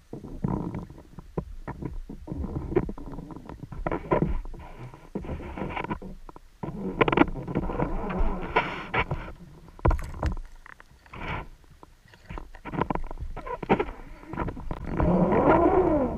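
Raw underwater audio from a freediving line: irregular knocks, bumps and rumbling water noise, with sharper knocks in the middle as a freediver turns at the bottom of the line. Near the end a wavering tone rises and falls.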